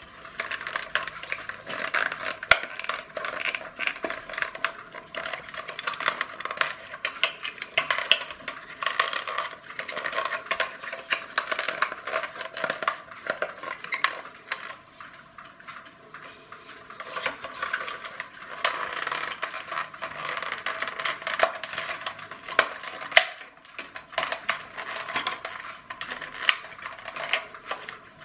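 Small plastic parts of a clear-plastic clockwork toy car's gearbox being unscrewed and handled: a dense run of rapid clicks, taps and rattles of plastic gears, casing and small screws.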